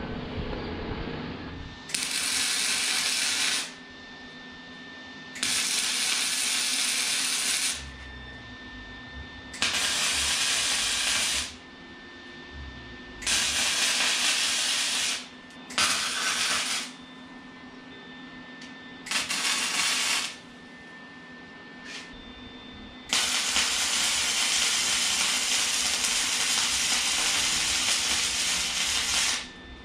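Wire-feed arc welder welding a steel tube frame: seven separate runs of harsh, even hissing, the first six short, one to two seconds each, and the last and longest about six seconds, near the end.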